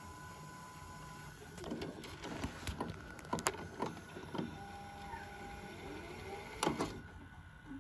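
Panasonic PV-V4022 VHS VCR rewinding a tape: its transport motor whirs, with a steady whine that stops about a second in. Several sharp mechanical clicks sound through it, the loudest near the end.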